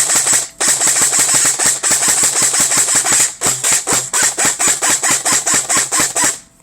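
Airsoft electric gun (AEG) with a stock motor and 16:1 gears firing in rapid continuous cycles, a fast even rattle of gearbox shots over the motor whine, with two brief breaks and an abrupt stop near the end. The gun is drawing a heavy current from a 3S battery.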